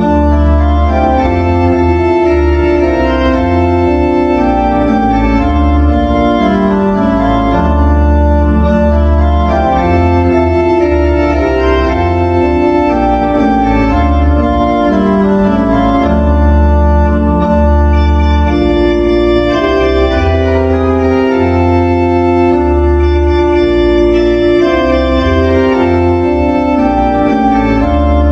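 Organ playing slow, sustained chords over a deep pedal bass, with no singing.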